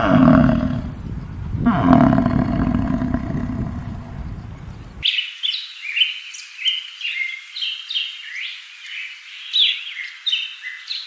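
Two low, drawn-out animal calls in the first half, in a clip that was cattle mooing just before. About halfway through the sound cuts suddenly to a songbird singing a quick run of high chirping notes.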